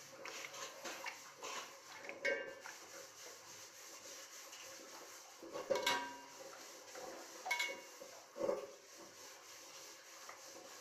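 A knife scraping the dark lining off goat tripe on a plastic cutting board, a rasping rub, broken by a few sharp knocks of the blade on the board, the loudest about six seconds in.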